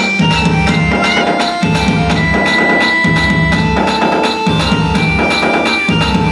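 Ayyappa devotional song in an instrumental passage: fast, even percussion strokes under held melody notes.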